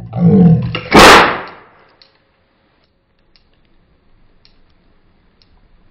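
Prank exploding pen's spring-loaded clip snapping onto a toy cap and firing it: one sharp, very loud bang about a second in that rings out briefly. A few faint clicks from the pen being handled follow.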